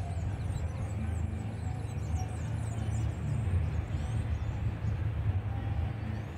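Outdoor riverbank ambience: a steady, uneven low rumble throughout, with birds giving repeated short, high, falling chirps over it.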